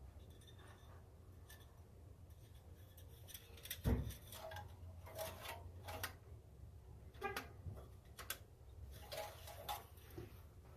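Scattered light clicks and taps from hands working around the engine bay, with one louder knock about four seconds in, over a low steady hum. The engine is not running.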